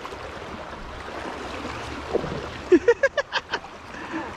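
River water flowing steadily, a continuous rushing noise. About three seconds in, a quick run of about six short voice-like calls.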